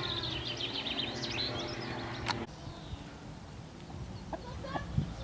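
Outdoor birdsong, many quick chirps and trills over a steady low hum; about two and a half seconds in the sound cuts abruptly to a quieter outdoor background with only a few faint chirps.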